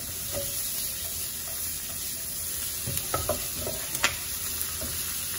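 Chopped onion, garlic and tomato wedges sizzling in oil in a non-stick frying pan while being stirred with a wooden spatula, the tomato just added and starting to soften. A few sharp clicks of the spatula against the pan come about three to four seconds in.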